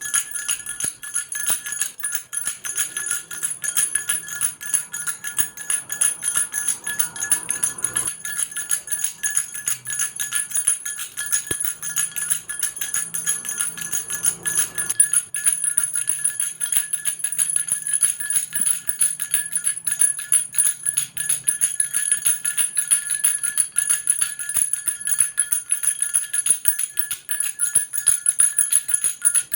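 Baby rattle shaken without pause: a rapid, steady jingling with a bright ringing tone.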